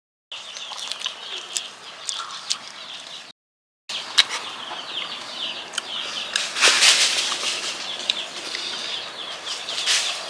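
Chickens clucking and chirping, with a flurry of wing flapping about two-thirds of the way through. The sound drops out abruptly for a moment about three seconds in.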